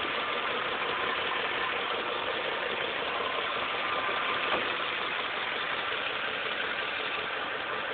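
Ford 5.4-litre V8 of a 2008 F-150 idling steadily with an engine knock that sounds like an old diesel tractor, which the owner suspects is an oil pump or timing fault.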